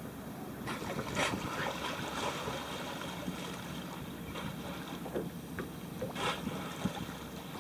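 Small boat's motor running steadily at low speed, with wind on the microphone. Several short rushing bursts stand out, the loudest about a second in and again about six seconds in.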